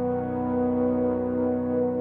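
Slow background music with long held notes that swell gently.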